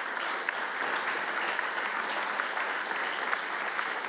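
An audience applauding steadily: many people clapping at once.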